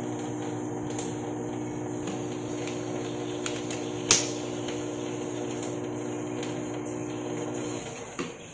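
A steady appliance hum with a low drone, which cuts off shortly before the end. About halfway through, a single sharp click as the plastic cap of a coconut oil bottle is snapped open, with a few faint ticks around it.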